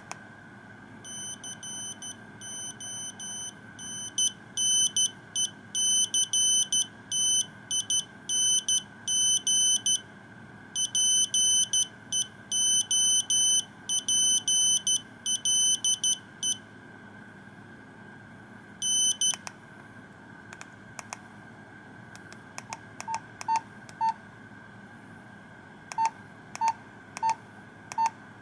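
Nokia 2100 mobile phone playing a monophonic ringtone through its buzzer: a fast rhythmic pattern of high, reedy beeps, quieter for the first few seconds and then louder, lasting about fifteen seconds. After a pause come a short burst of the same beeps, then scattered clicks and short, lower beeps toward the end.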